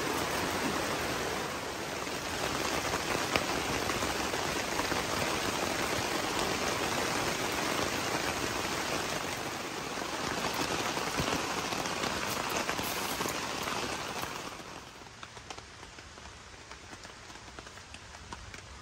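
Steady rain falling, a dense even hiss, that turns quieter about fifteen seconds in, leaving separate drops ticking.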